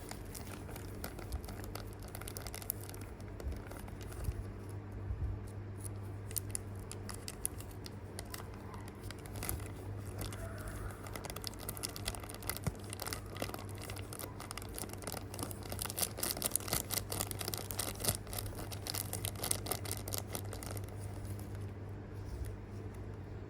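Plastic packaging crinkling and crackling in irregular bursts as it is handled and opened, busiest past the middle, over a steady low hum.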